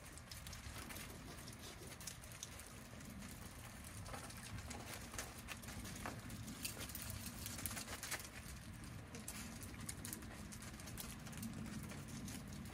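Faint, irregular crunching and ticking of several dogs' paws moving over gravel.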